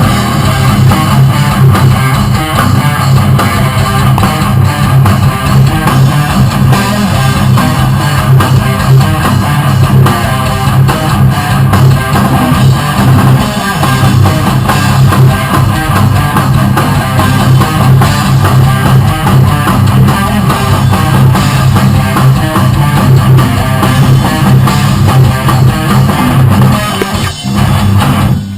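Loud rock music led by guitar, with bass underneath, playing without a stop except a brief break near the end.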